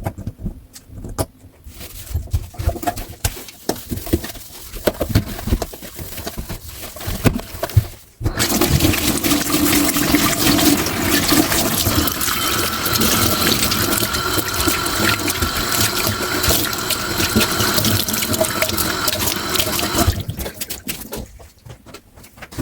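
Kitchen tap turned on about eight seconds in, water running hard and steadily into the sink for about twelve seconds, then shut off. Before and after it, light knocks and clinks of dishes being handled.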